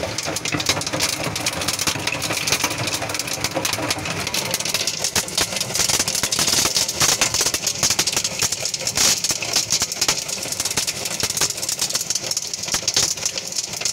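Hail and wind-driven heavy rain pelting down, a dense rattle of countless hits on surfaces under a steady rush. It grows louder about five seconds in.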